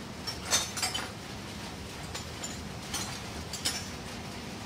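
About half a dozen light metal clinks, spaced irregularly, as the steel steering arm, nut and washer on an Eicher 364 tractor's front stub axle are handled and fitted. A low steady hum lies underneath.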